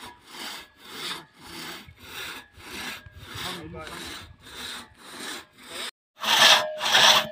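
Two-man crosscut saw cutting through a log by hand, its back-and-forth strokes coming about twice a second. Just after six seconds in the sound breaks off briefly and comes back louder.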